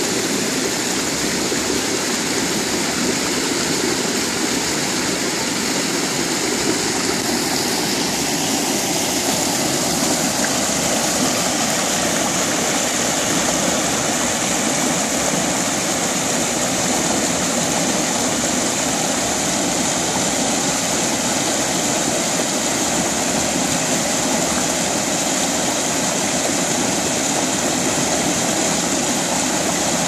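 Small mountain-creek cascade rushing and splashing over boulders into a pool: a steady rush of falling water, with the high hiss growing stronger about eight seconds in.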